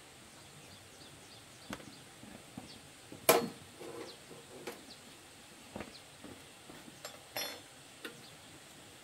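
Scattered knocks and clinks of hand tools and metal parts being handled, with one loud knock a little over three seconds in and a short rattle near the end.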